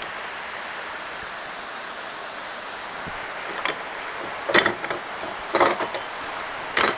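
Steady background hiss; from about halfway in, about five sharp knocks and clanks as the jockey wheel's forks are handled in a bench vise.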